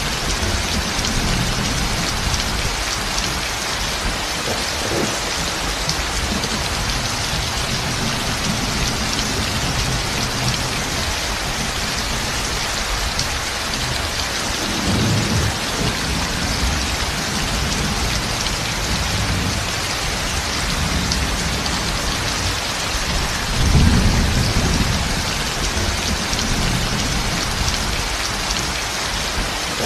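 Heavy rain pouring down steadily, with low rolls of thunder swelling about fifteen seconds in and again around twenty-four seconds.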